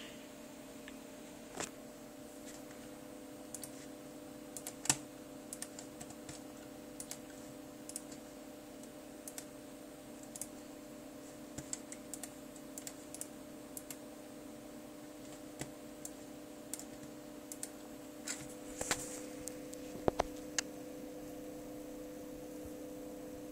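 Scattered, irregular clicks of an HP Compaq nx7400 laptop's keys and buttons being pressed, a few louder ones near the end, over a steady low hum.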